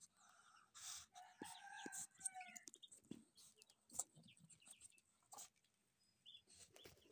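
Muscovy duck hen and her ducklings calling faintly: a soft pitched call from about a second in that lasts a second and a half, a few short high peeps near the end, and scattered light clicks.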